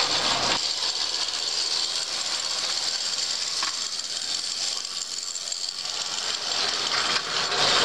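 O scale two-rail model train running close by: a steady mechanical whir and clatter of its motor, gears and wheels on the track.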